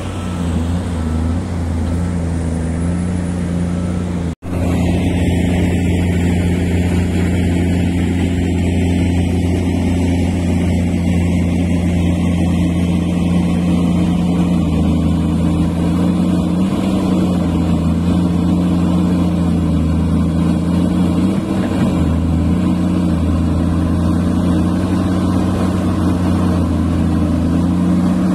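XCMG XE470D crawler excavator's diesel engine running steadily close by, a constant low hum. The sound drops out for an instant about four seconds in.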